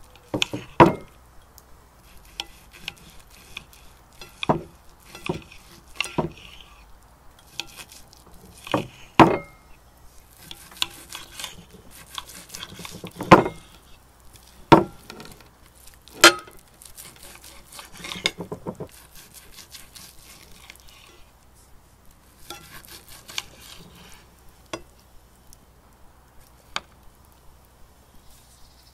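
Steak knife and fork cutting a ribeye steak on a ceramic plate: the blade scrapes on the plate between sawing strokes, with several sharp clinks of steel against china.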